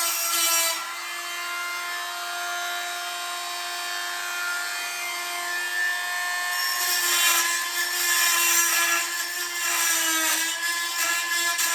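Oscillating multi-tool running with a steady high hum, its blade cutting and scraping into the wall, with rougher, louder cutting from about seven seconds in.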